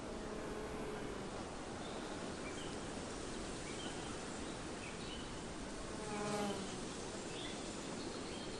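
An insect buzzing past, loudest and closest about six seconds in, with a fainter buzz near the start, over a steady outdoor hiss and faint short bird chirps.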